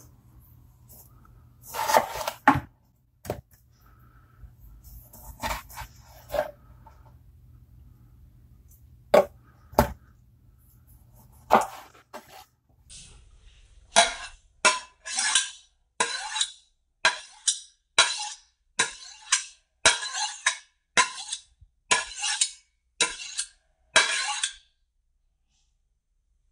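A kitchen knife slicing through a tomato and knocking on a wooden cutting board a few times, then, from about halfway through, the blade stroked along a honing rod in a steady run of quick swishes, about two a second for some ten seconds.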